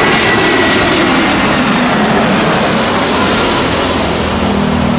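Jet engines of an Airbus A320-family airliner on final approach and landing, passing close by: a loud, steady roar with a faint whine that slowly falls in pitch.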